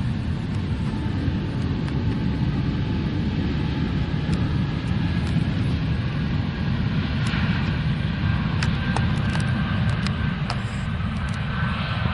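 Aircraft engine noise: a steady low rumble, with a higher whine building in the second half.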